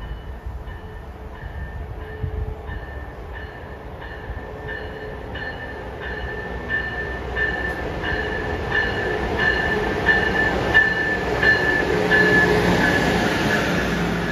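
Amtrak Acela high-speed trainset approaching and running through the station, its rumble and rush swelling to a peak as the cars pass. Over it, a bell rings steadily about twice a second, growing louder as the train nears.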